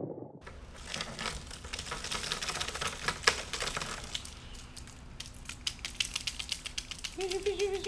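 Quick, irregular clicks and light rattles from a hard-body swimbait and its hooks being handled, with a short hum near the end.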